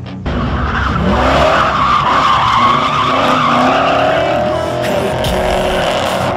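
Tires squealing in a long, continuous skid under a Dodge Charger driven hard, with its 426 wedge big-block V8 rumbling underneath; the squeal starts abruptly about a quarter second in.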